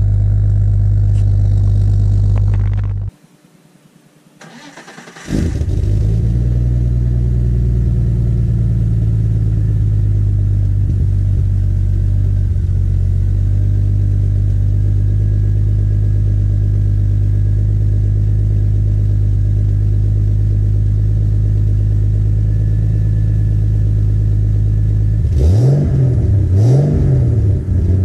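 Turbocharged BMW M52B28TU straight-six with an open 3-inch exhaust and Magnaflow muffler, running steadily, then shut off about three seconds in. After a short crank it catches and idles evenly. Near the end it gets a couple of quick throttle blips, the pitch rising and falling.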